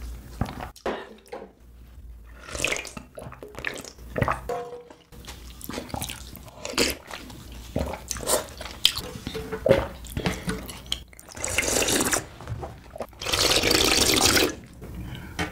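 Close-miked slurping and sipping of spicy broth from a ladle, in short wet bursts. Near the end come two long, louder slurps as the broth is drunk straight from the tipped pan.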